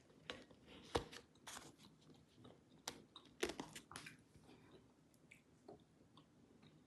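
Plastic deli containers filled with fried peanuts being handled and stacked on a wooden table: a few sharp plastic clunks and crunchy clicks, the loudest with a dull thud about a second in, then only faint small ticks after about four and a half seconds.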